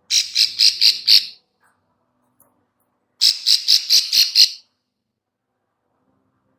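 Female ciblek sawah (plain prinia) giving its clicking 'klik-klik' call: two runs of short, buzzy, high notes at about four a second, the first of five notes, the second of six starting about three seconds in.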